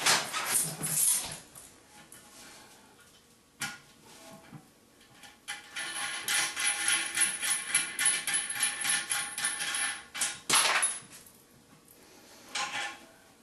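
Metal tool work on the nuts of a toilet's tank bolts: scraping and a sharp knock, then a long run of rapid metallic ticking and rattling, and a loud scrape about ten seconds in.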